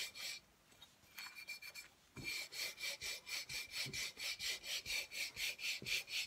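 A hand rubbing fast back and forth over a paper serviette on a bottle, a rasping swish of about five strokes a second, smoothing the napkin flat onto the glued bottle. The rubbing stops for about a second and a half near the start, then picks up again.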